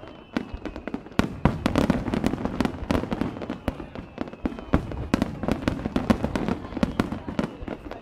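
Aerial fireworks display: shells bursting in quick succession, many sharp bangs and crackles over a low rumble.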